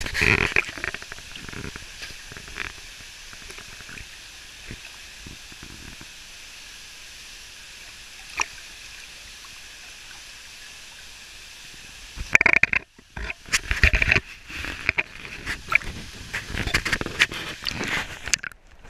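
Steady rush of a small waterfall pouring into a rock pool, with a few splashes at the very start. From about twelve seconds in, irregular splashing and sloshing as water washes over a camera held at the surface, the sound cutting in and out as it dips under.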